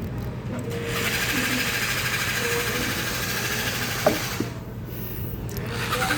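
A small handheld motorised tool buzzing rapidly in a run of about three seconds, stopping, then starting again near the end, with a single sharp click about four seconds in.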